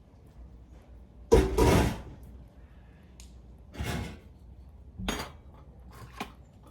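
Kitchen pots and dishes clattering as boiled cassava is tipped into a bowl: one loud clatter about a second and a half in, then a few softer knocks.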